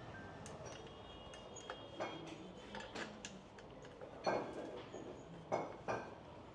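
Scattered light metallic clicks and taps of bolts and rack parts being handled and screwed in, with three louder knocks in the second half.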